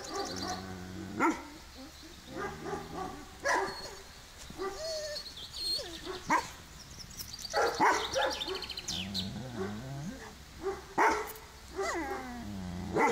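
Kangal shepherd dog barking, about ten short barks at irregular intervals.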